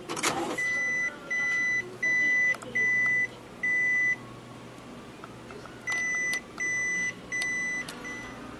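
Epson Stylus Photo PX730WD printer's error beeper sounding a series of high half-second beeps, five in a row and then four more after a pause, signalling a 'printer error' fault. A brief clatter comes right at the start.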